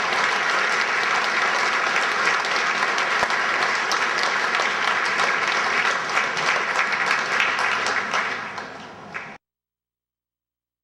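Audience applauding, thinning out near the end before the sound cuts off suddenly.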